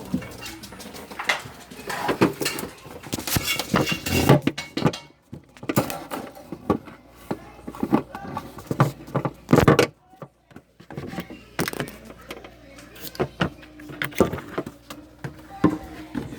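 Irregular knocks, clicks and rustling, as of objects and the recording phone being handled and shifted, with two brief drops to near silence about five and ten seconds in.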